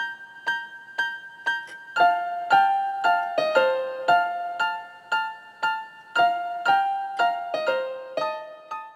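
Keyboard music, a melody of struck notes about two a second, growing fuller about two seconds in.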